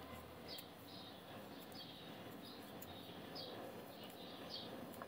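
Faint bird chirping: short downward-sliding chirps repeated about once a second over quiet room tone.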